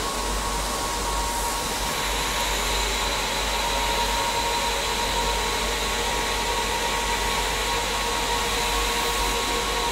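Steady mechanical whir and hum of running machinery, with a few constant tones held throughout.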